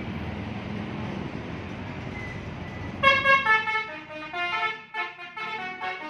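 Steady traffic and motorbike noise, then about halfway through a tour bus's multi-trumpet 'telolet' horn starts, playing a quick melody of stepped notes.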